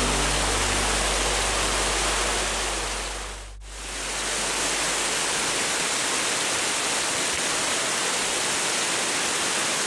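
Steady rush of flowing water over a rocky streambed. Background music fades out in the first second or so, the sound dips briefly about three and a half seconds in, and then the even rushing resumes.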